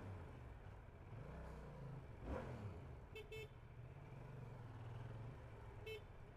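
Motorcycle engine running low and steady under riding noise, with short horn toots: two in quick succession about three seconds in and one more near the end.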